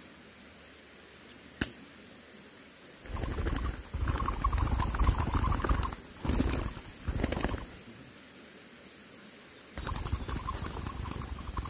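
Spotted dove cooing in two spells, the first about three seconds in and the second near the end, with a low rumble under the calls and a steady high insect drone throughout. A single sharp click comes shortly before the first spell.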